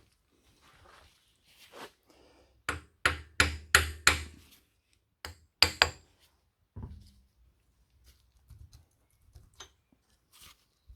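Sharp knocks of a hand tool striking engine parts: a quick run of about six blows, two or three more a second later, then a duller thump.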